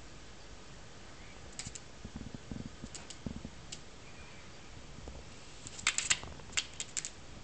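Sharp clicks and taps from a tame common blackbird's beak and claws on the table and its plastic water bowl, a few scattered at first, then a quick cluster about six seconds in and several more singles, with a few soft thumps between them.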